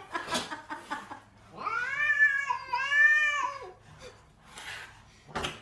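A cat meowing: two long, drawn-out meows back to back, each rising then falling in pitch, starting about a second and a half in. There are faint clicks before them.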